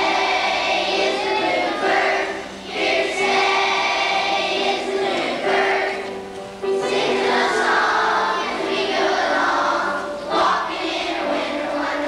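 Choir of elementary-school children singing together, in held notes with short breaks between phrases, recorded on a VHS camcorder.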